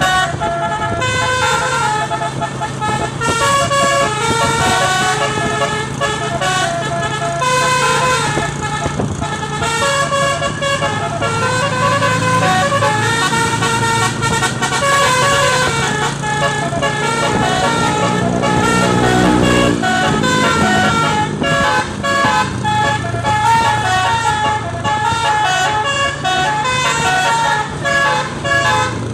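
Indonesian 'telolet' bus horn playing a tune: a run of short, stepped multi-tone horn notes, repeated throughout, over the bus engine's steady low hum.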